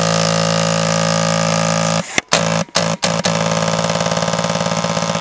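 A Polar Star HPA pneumatic engine in an airsoft M249 fires on full auto at a very high rate, so fast that the shots run together into a steady buzz. About two seconds in it starts stuttering, with several short breaks between bursts, as the air supply runs out.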